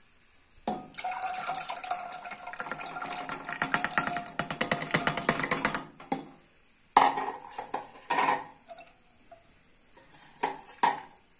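Soaked chana dal and water poured from a steel bowl into an aluminium pressure cooker, splashing and pattering for about five seconds. Then a few sharp metal clanks.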